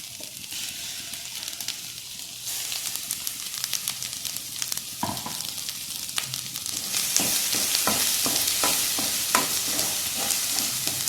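Onion, ginger-garlic paste and masala frying in gingelly oil in a kadai, sizzling steadily while a spoon stirs and scrapes the pan with many sharp clicks. The sizzle grows louder about two and a half seconds in and again about seven seconds in.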